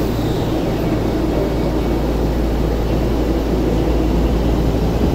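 Tokyo Metro Ginza Line 1000 series subway train at the platform, its motors and equipment making a steady low hum that grows a little louder in the last second or so as the train starts to pull away.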